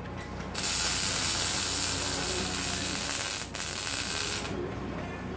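MIG welding arc crackling steadily as a bead is run on steel. It starts about half a second in, breaks off briefly a little after three seconds, resumes, then stops about a second before the end.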